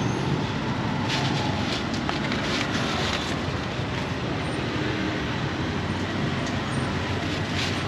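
Steady street traffic noise, engines rumbling as vehicles pass, with a few faint clicks.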